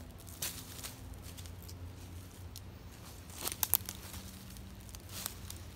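Rotten wood and roots cracking and tearing as they are pulled and broken off an old stump, with dry leaf litter crunching. The cracks come irregularly, the loudest in a quick cluster a little past halfway.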